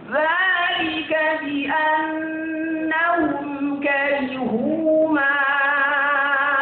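Solo Qur'an recitation in melodic tajwid style: a high voice sings out phrases, its pitch rising at the start. About two-thirds of the way in, it holds one long, wavering elongated note.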